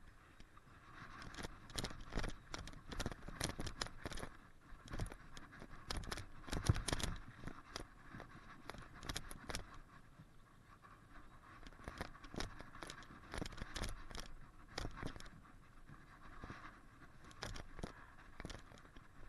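Mountain bike clattering down a rocky trail: rattles and knocks from the bike over rocks and roots, with steady tyre and air rush, picked up by an action camera's poor microphone. The clatter is busiest in the first seven seconds, with the loudest knock about seven seconds in, and again from about twelve to fifteen seconds in.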